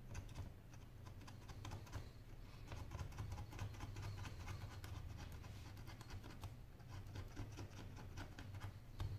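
Faint scratching and irregular clicking of a thin metal pry tool worked along the edge of a Samsung Galaxy Note Pro 12.2 (SM-P905) tablet's LCD panel, prying it loose from the frame cold, without heat. A sharper click comes near the end, over a steady low hum.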